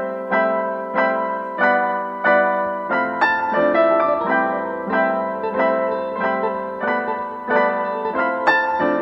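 Background piano music: single notes and chords struck about one to two a second, each ringing and fading before the next.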